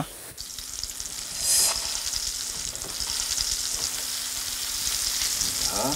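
Breaded beef top-round cutlet (chicken fried steak) sizzling as it shallow-fries half submerged in hot oil with butter; the sizzle briefly flares louder about a second and a half in.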